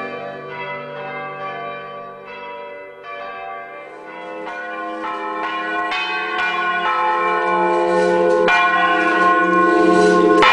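Bells ringing, several tones sounding together with new strikes coming in turn, growing louder in the second half.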